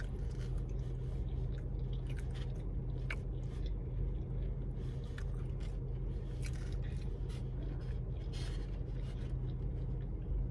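A person chewing a mouthful of loaded fries close to the microphone, with scattered small mouth clicks over a steady low hum.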